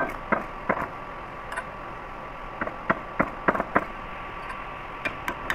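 Irregular sharp metal clicks from a socket wrench being worked on the end-cover bolts of an ammonia compressor's oil filter housing, several in a quick cluster about three seconds in, over a steady background hum.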